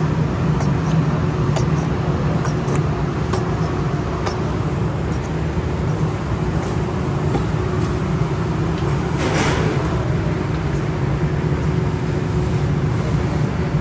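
Steady low hum of kitchen machinery such as an extractor fan or oven blower, with a faint steady tone. A brief hiss comes about nine seconds in, and faint clicks show in the first few seconds.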